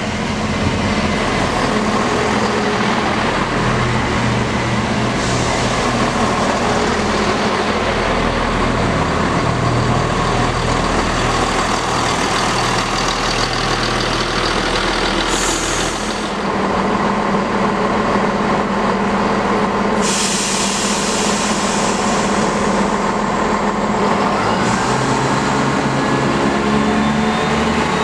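Chiltern Railways Class 168 diesel multiple unit running past at the platform, its underfloor diesel engines and wheels on the rails giving a loud, continuous run-past sound, with a change in the engine note about sixteen seconds in.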